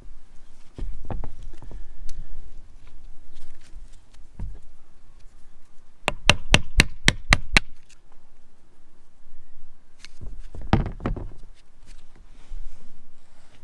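Hammer tapping on the steel yoke of a Toyota truck driveshaft U-joint to knock out its C-clips. There are scattered knocks, with a quick run of seven sharp metallic taps about halfway through and a cluster of duller thuds near the end.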